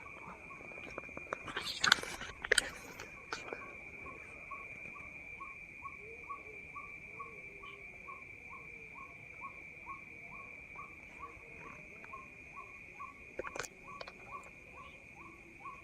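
A short call repeated about twice a second over a steady, high insect drone, with a few sharp clicks about two seconds in and another near the end.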